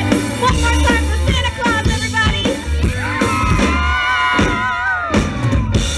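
Live band music with drums and bass, and a voice holding one long sung note from about halfway through that stops shortly before the end.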